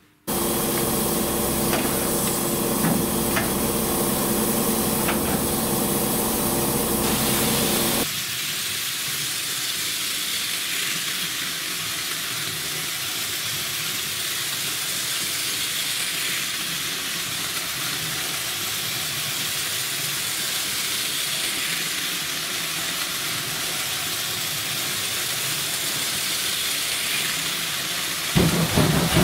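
Steam locomotive blowing off steam in a loud, steady hiss. For the first eight seconds a humming tone and a few clicks run under it.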